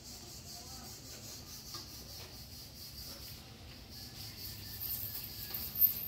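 Scissor jack being cranked by hand with its rod handle to raise the car: faint rubbing and scraping with a few light clicks, and a sharper knock near the end.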